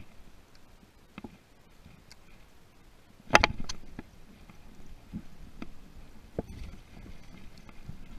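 Scattered knocks and rustles of hands handling a spinning rod and reel close to the microphone, with a cluster of louder knocks about three and a half seconds in as a fish is hooked and the rod bends.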